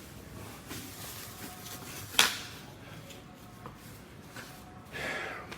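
Low steady background noise with a single sharp knock about two seconds in and a few fainter ticks.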